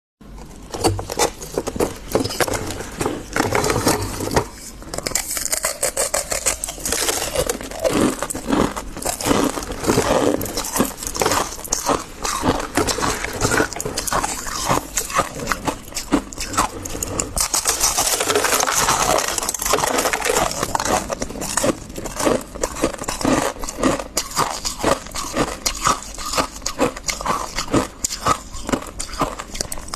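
Freezer frost being scraped and eaten: a dense, uneven run of crunching and crackling.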